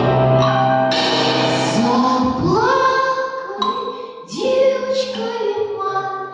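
Singing with musical accompaniment: the voice holds long notes and slides up into a new note twice, the first time about two and a half seconds in and again just past four seconds.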